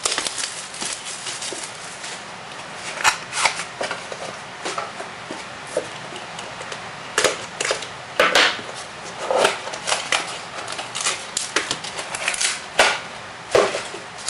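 Trading-card box packaging being handled and opened: irregular sharp crackles and clicks of plastic wrap and cardboard.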